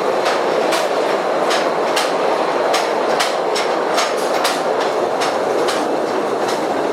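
Small tourist train running through the Postojna cave tunnels: a steady rumble with sharp wheel clicks over the rail joints, two or three a second.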